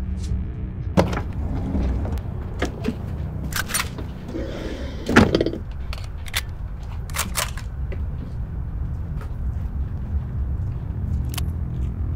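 A steady low rumble with scattered short clicks and knocks, and one louder knock about five seconds in.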